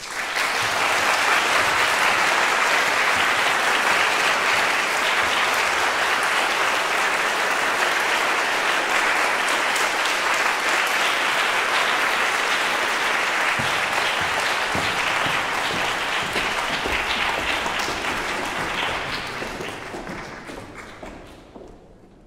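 Concert audience applauding steadily; the clapping starts suddenly and dies away over the last few seconds.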